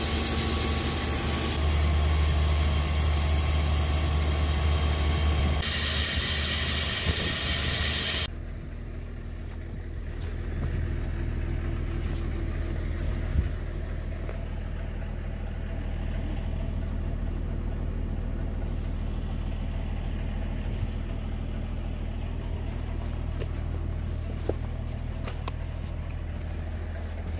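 Hydraulic rock drill boring into rock, a loud grinding run that grows harsher shortly before it cuts off suddenly after about eight seconds. A machine engine then keeps running steadily at idle.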